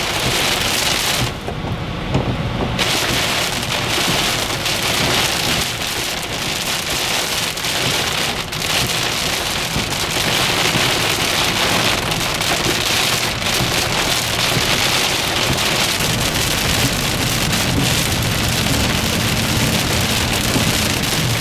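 Heavy thunderstorm rain pelting a moving car's windshield and roof, with road noise underneath. The rain drumming briefly drops away about a second in as the car passes under a highway overpass.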